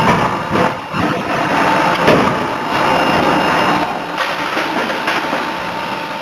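Steady mechanical din of forging-shop machinery with a faint steady whine, broken by a few sharp knocks, the loudest about two seconds in.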